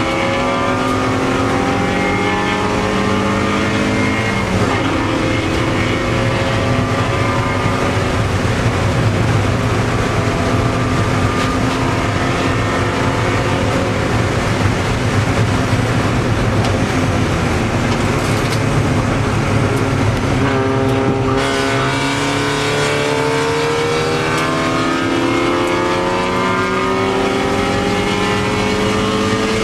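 Race car engine heard from inside the cabin under hard acceleration on track, its note climbing through the revs and dropping at gear changes a little over four seconds in and again around twenty seconds in, over steady wind and road noise.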